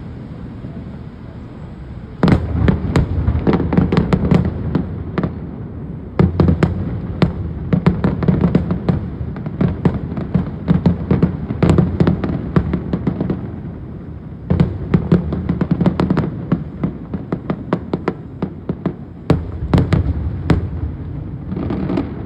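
Aerial fireworks display: rapid volleys of shell bursts and crackling bangs coming in several waves, each a few seconds long, with brief lulls between them.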